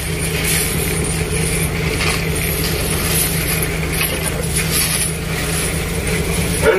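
Steady drone of a tuna purse seiner's engine and deck machinery with a constant low hum, mixed with water rushing in the wake, as the purse seine net pays out over the stern.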